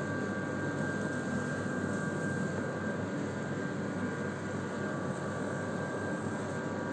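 Steady drone of a woodworking power tool's motor running without let-up, with a constant high tone over an even hiss.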